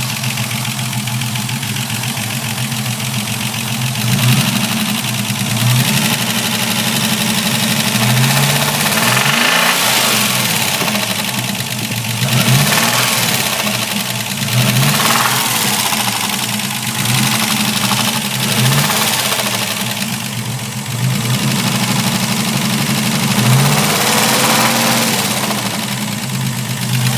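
Ford Capri engine running, its revs rising briefly and falling back every couple of seconds, with the grinding noise that the owner is trying to trace.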